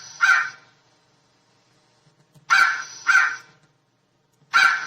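Raven croaking: harsh calls given in pairs, one pair at the start, another about two and a half seconds in, and a third near the end.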